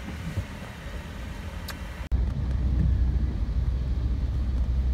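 Steady low road and engine rumble inside a car's cabin, on wet roads in the rain, with a few light ticks early on. About two seconds in there is an abrupt cut, after which the low rumble is louder and steady.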